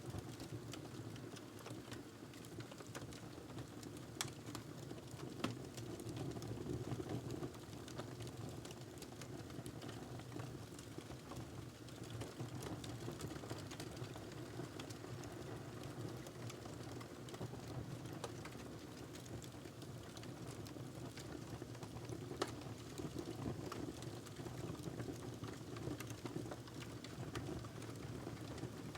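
Wood fire burning in a fireplace: a steady low rush of flame with scattered crackles and a few sharper pops.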